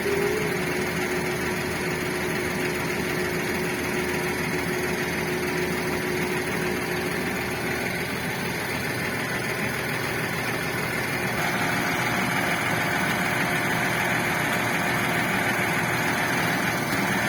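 Volvo wheel excavator's diesel engine running steadily at idle; about eleven seconds in the sound steps up, with a higher steady whine joining in.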